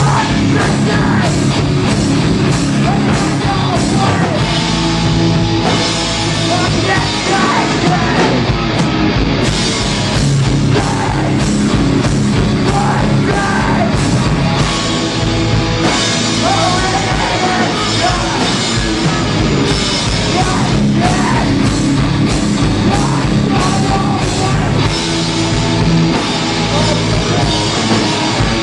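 A hardcore punk band playing live: loud distorted guitars, bass and pounding drums, with shouted vocals over them.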